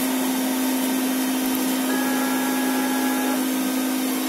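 CNC router spindle running steadily, a constant hum with a hiss over it. A faint higher whine joins for about a second and a half in the middle.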